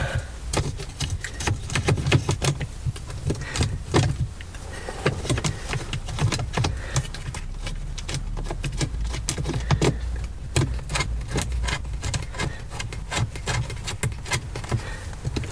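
Socket wrench clicking and small metal clinks in irregular runs as nuts are worked loose on a Rover P5B's gear lever housing, over a low steady hum.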